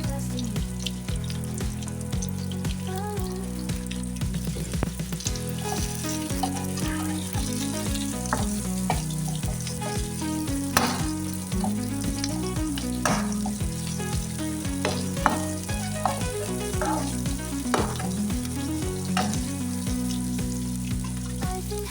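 Garlic, onions and green pepper frying in hot oil in a pan with a steady sizzle. A spatula stirs and scrapes them, knocking against the pan now and then, loudest about halfway through.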